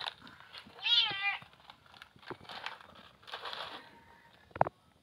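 A cat meows once, a short call about a second in. Later a plastic snack packet rustles briefly, and there is a sharp click near the end.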